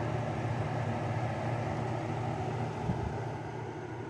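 LG 6000 BTU window air conditioner's fan running steadily, a low hum under an even rush of air, with the compressor not yet running. A small bump about three seconds in.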